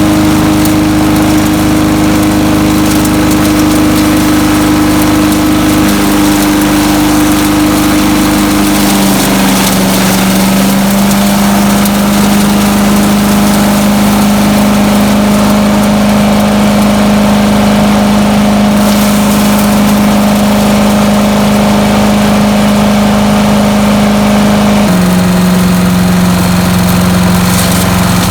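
Landworks 7 hp chipper shredder's gas engine running steadily, its pitch stepping down a little several times, about a third of the way in and again near the end.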